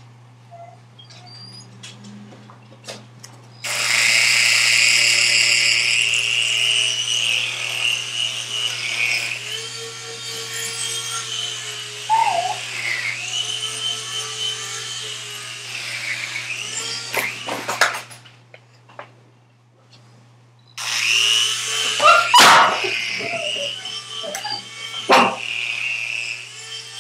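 A tiny remote-controlled toy helicopter's electric motor and rotor whine steadily, starting about four seconds in. The whine cuts out for a few seconds past the middle, then starts up again. A Shetland Sheepdog barks at it several times.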